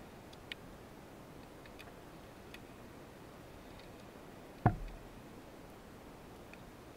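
Underwater ambience through a camera housing: a steady low hiss with a few faint, sharp clicks scattered through it. About two-thirds of the way in comes a single loud, short knock with a deep thud to it.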